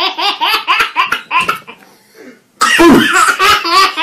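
A baby laughing in quick rhythmic bursts, a brief pause, then a louder run of laughter about two and a half seconds in.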